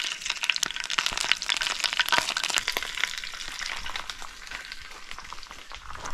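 Coral trout wings and skin frying in hot oil in a frying pan: a steady sizzle full of sharp crackles and pops, easing off in the second half.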